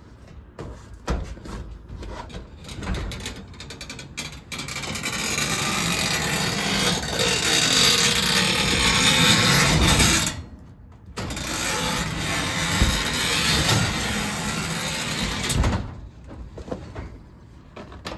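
Cloplay sectional garage door running along its tracks, a steady mechanical rattle and rumble that runs for about six seconds, stops for about a second, then runs again for about four seconds, with scattered knocks before and after. Its lift cables ride off the pulleys and rub on the sharp edge of the track, which the owner says makes them squeak and is fraying them.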